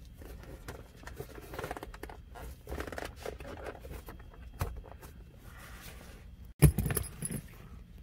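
Hands working loose plastic interior trim around a car's centre console: scattered scraping, rustling and small clicks, then a louder clatter about six and a half seconds in.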